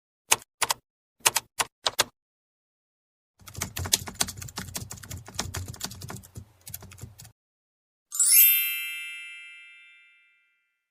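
A sequence of short sound effects: a few sharp clicks, mostly in pairs, then about four seconds of rapid keyboard typing, then a single bright bell-like ding that rings out and fades over about two seconds.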